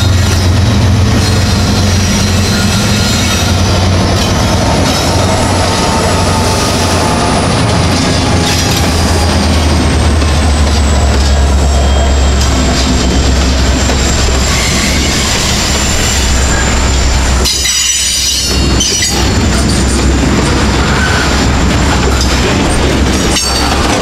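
CN freight train passing close by: two EMD SD70M-2 diesel locomotives rumble past, followed by boxcars and covered grain hopper cars rolling by with steady wheel-on-rail noise and clacking. A thin, high wheel squeal slides slowly lower throughout.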